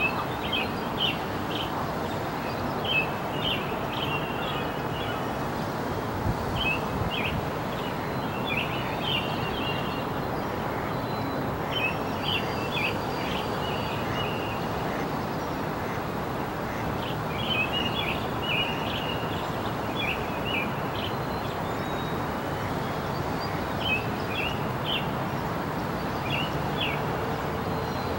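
Small birds chirping in quick clusters of short, high notes every second or two, over a steady rushing background noise.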